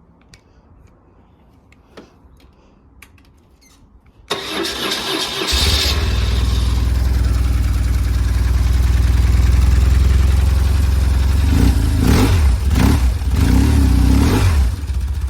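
BMW R1150 motorcycle's flat-twin boxer engine cranked on the starter about four seconds in, catching a second later and settling into a steady idle, with a few blips of the throttle near the end.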